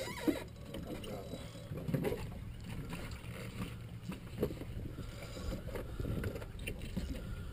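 Steady low rumble of wind and water around a small fishing boat, with a few faint knocks.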